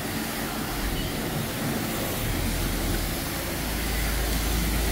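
Water jet spraying, a steady hiss, with a low rumble that grows louder near the end.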